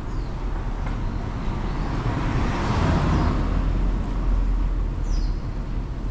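Street traffic noise with a car passing unseen, swelling and fading over a couple of seconds; a bird chirps briefly near the end.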